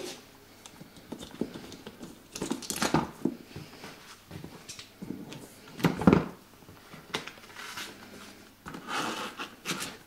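Close handling noise: irregular rustling, crinkling and soft knocks, with the busiest patch about three seconds in and another sharp one at six seconds.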